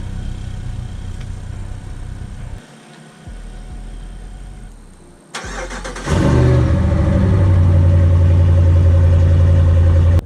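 Vehicle engine running, cut off partway. About five seconds in, an engine starts and settles into a loud, steady run.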